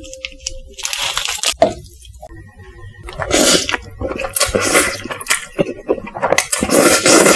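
Close-miked slurping and chewing of sauced instant noodles (Samyang Buldak jjajang, in black bean sauce). The slurps come as repeated noisy bursts that grow louder from about three seconds in.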